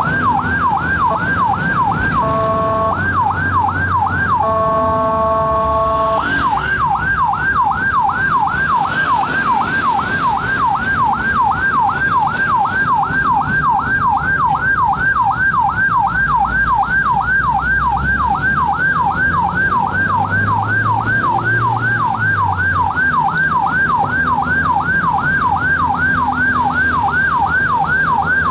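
Ambulance electronic siren running loud. For the first six seconds or so it switches between a steady horn-like tone and a fast yelp; after that the yelp runs continuously, rising and falling about twice a second. A vehicle engine runs underneath.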